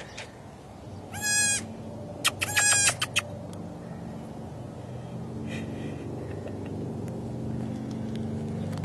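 A baby goat (kid) bleating twice in short, high-pitched cries, a little over a second apart. A steady low hum runs underneath and grows louder in the second half.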